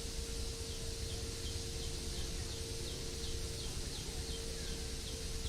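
Outdoor ambience with a small animal's call: short, high, falling chirps repeated about three times a second, starting about a second in, over a steady low rumble and a steady hum.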